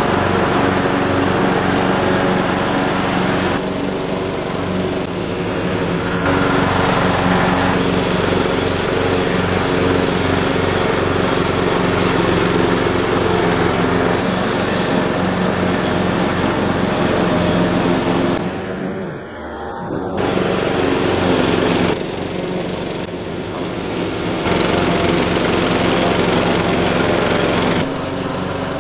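Riding tractor mower running under load, its engine and spinning deck, fitted with circular saw blades in place of mower blades, cutting tall grass. The engine note is steady with an even low pulsing. The sound shifts abruptly several times and drops briefly about two-thirds of the way through.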